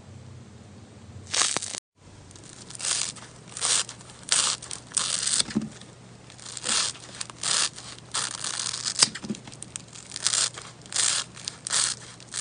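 Crunchy sponge slime being squeezed and worked by hand, giving a string of crisp crackling crunches, roughly one or two a second, with a short break about two seconds in.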